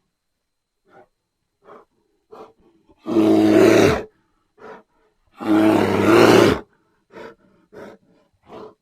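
Bear growling: two long, loud growls about three and five and a half seconds in, with short, quieter huffs and grunts between and after them.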